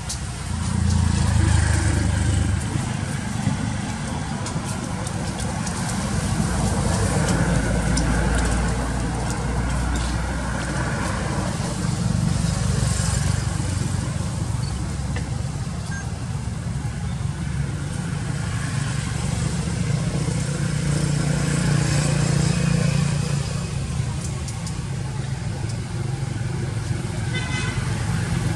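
Road traffic: vehicle engines passing, the low engine rumble swelling and fading in turns.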